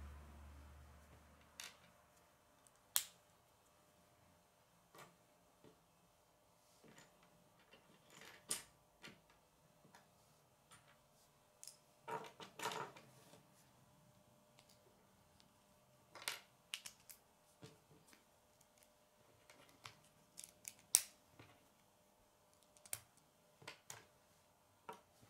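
Faint, scattered sharp clicks of plastic K'nex pieces being snapped together by hand and set down on a wooden table, with a quick run of clicks near the middle.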